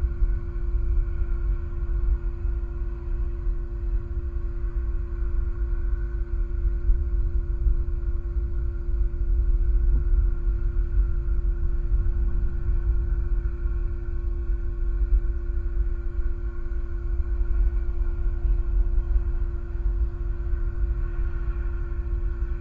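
Low, gusting wind rumble on an outdoor nest-camera microphone, with a steady hum of several tones underneath.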